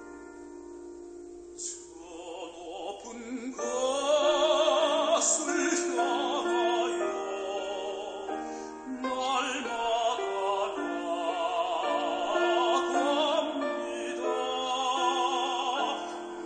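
Background music in a classical, operatic style: a sustained instrumental chord opens it, then a solo singer with wide vibrato comes in after about two seconds over the accompaniment.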